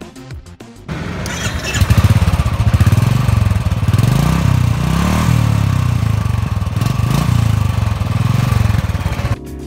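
Royal Enfield Classic's single-cylinder engine running through its stock exhaust silencer: the standard exhaust note. It is a loud, pulsing thump, with the revs rising and falling a few times.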